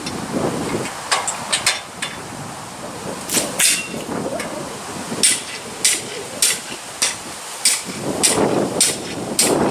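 Hammer striking nails into wood trim: sharp taps, a few scattered at first, then about one every 0.6 s from about halfway through.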